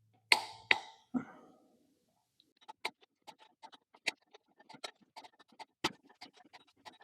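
Metal tools and engine parts being handled in a workshop: three sharp clanks in the first second, then a run of light, irregular metallic clicks and ticks.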